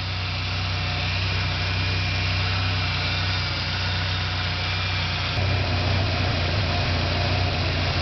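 Ford Ranger 2.5-litre four-cylinder engine idling steadily while still cold, running on a newly replaced timing belt as the cooling system is bled of air.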